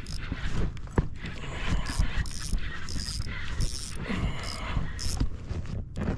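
Fishing reel being cranked to bring up a big hooked fish, its gears whirring and clicking in short spurts.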